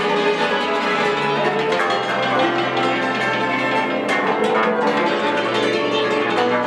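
An ensemble of Ukrainian tsymbaly (hammered dulcimers) plays a folk melody with a dense, ringing tremolo of struck strings. A bowed double bass holds low notes beneath it.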